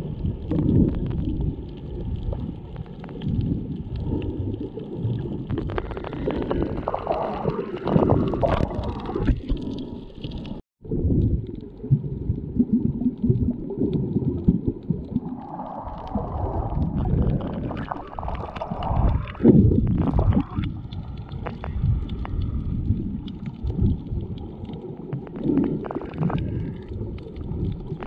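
Muffled water sloshing and gurgling around a GoPro 7 while snorkeling, heard as a continuous low rumble. The sound cuts out completely for an instant about ten and a half seconds in.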